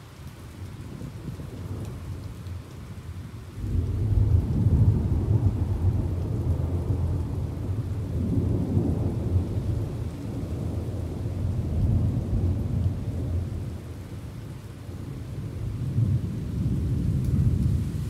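Rolling thunder over steady rain. A deep rumble breaks in suddenly a few seconds in and keeps rolling, swelling and easing several times, while the rain hisses throughout.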